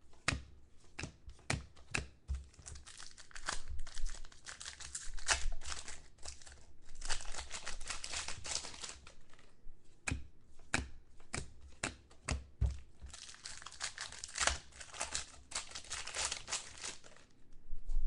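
Foil trading-card packs being torn open and crinkled, with the cards inside being handled and flicked through, making irregular crackles and sharp clicks.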